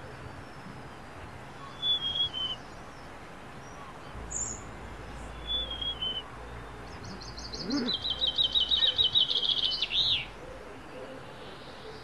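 Songbird song: a few short high whistled phrases, then a rapid high trill lasting about three seconds, the loudest part.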